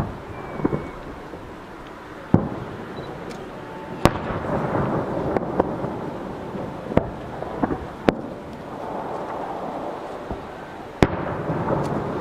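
Aerial firework shells bursting: a series of sharp bangs a second or few apart, about six in all, with a noisy rumble between the bursts that swells after the bangs at about four and eleven seconds in.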